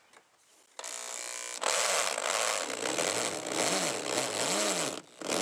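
Power drill with a 1/4-inch socket driving a self-tapping roofing screw into steel floor plate that is thicker than the screw is made for. The motor starts about a second in, then grinds louder under load, its pitch rising and falling as the screw bites. It stops near the end after a last short burst.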